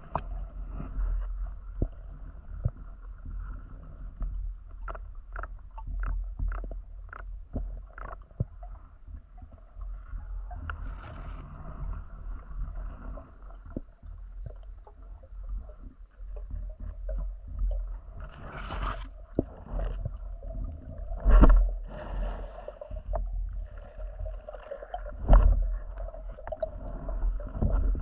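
Muffled water sounds around a diving camera during a spearfishing dive: sloshing and gurgling over a low rumble, with many short clicks and two louder thumps in the second half.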